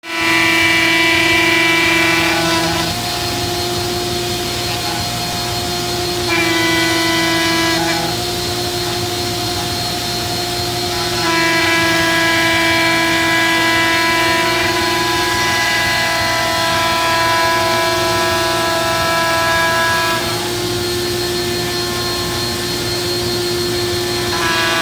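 ShopBot CNC router V-carving letters: a steady machine whine made of several held tones, its pitch mix and loudness changing every few seconds as the cut moves on.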